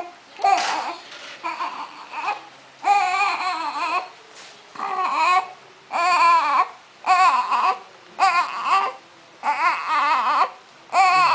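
Newborn baby crying in a series of wavering, high-pitched wails, each about a second long, with short breaths between.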